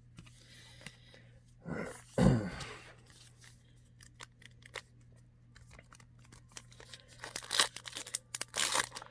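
Foil trading-card pack wrapper being handled and torn open, crinkling. There is a louder burst about two seconds in, and a quick run of crackling rips near the end.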